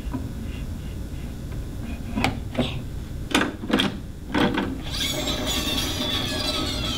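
A few knocks and clicks as a vinyl record is handled on a small portable turntable. About five seconds in comes a loud scratchy rasp, sliding downward in pitch, as the record is pushed round by hand with the stylus in the groove.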